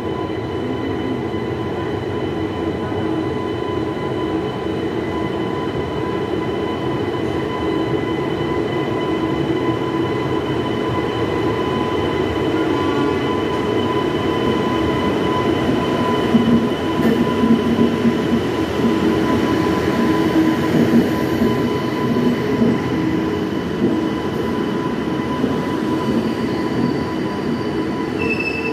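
A departing Indian Railways express, hauled by a WAG-9HC electric locomotive, rolls past at slow speed. The locomotive and then its coaches go by with a rumble of wheels on the track, over a steady high whine. The sound grows louder as the locomotive comes alongside and turns uneven and clattery as the coaches pass.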